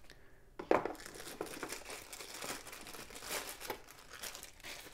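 Clear plastic wrapping crinkling and rustling as bicycle power pedals are unwrapped and handled, with irregular crackles throughout, loudest just under a second in.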